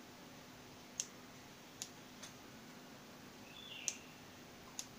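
Faint sharp clicks, five spread unevenly over a few seconds, from the push-to-talk switch of the transceiver's hand microphone, with a short high two-step beep just before the fourth click.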